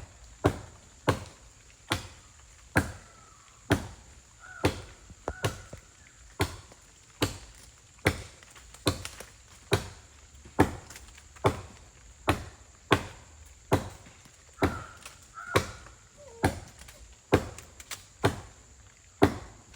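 Wood being chopped by hand, one sharp blade strike roughly every second in a steady, even rhythm.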